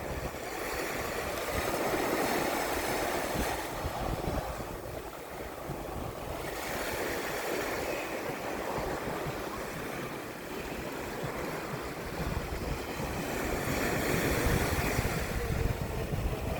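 Surf washing up on a sandy beach in slow swells about every six seconds, with wind rumbling on the microphone.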